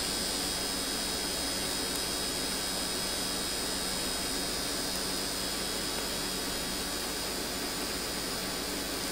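Steady background hiss with a low hum and faint high whining tones, unchanging throughout: microphone and computer noise, with no instrument notes heard.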